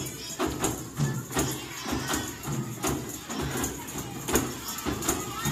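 A group of hand-held frame drums (kompang) beaten together in a steady, repeating rhythm.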